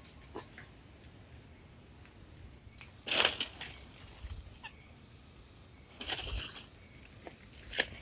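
A steady high-pitched insect drone, with two short rustling bursts about three and six seconds in, the first the louder.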